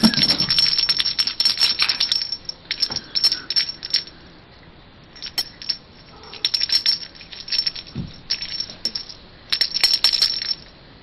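A small toy ball rattling and clicking in quick bursts as it is played with and rolled about on a hard surface. The bursts come several times, the longest at the start, with brief quiet gaps between.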